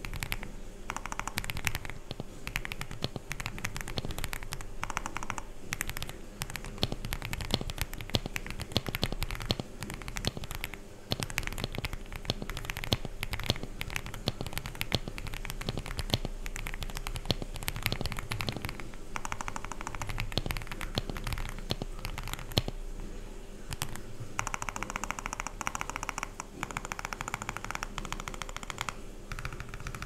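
Continuous typing on an Epomaker x Feker Galaxy 80 mechanical keyboard with factory-lubed AKKO V3 Cream Black Pro linear switches, PBT doubleshot keycaps and a polyfill-dampened case: a steady run of keystrokes with a short break about eleven seconds in.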